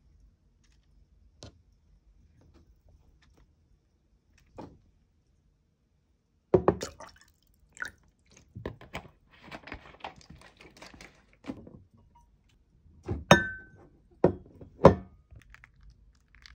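Handling sounds of putting together a salad in a ceramic bowl: faint light taps early on, then from about six seconds in several sharp knocks against the bowl and tabletop, with rustling and sesame dressing being poured from its bottle in between.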